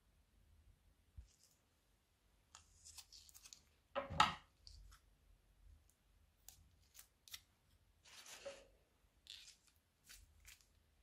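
Scissors snipping through the tip of a plastic piping bag of slime: several short, crisp cuts with rustling of the plastic in between. There is a louder knock and rustle about four seconds in.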